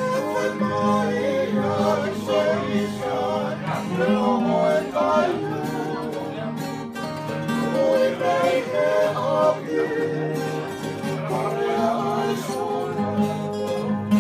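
A group of men singing together, accompanied by two strummed acoustic guitars and a ukulele.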